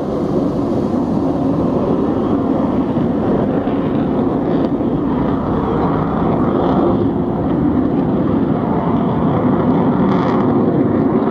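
A slow convoy of Nissan Patrol police SUVs drives past, with a steady noise of engines and tyres on the road.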